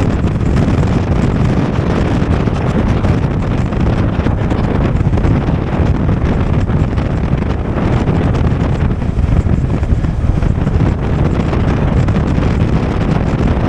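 Wind buffeting the microphone of an action camera on a moving off-road vehicle, heard as a loud, steady, even rumble with no breaks.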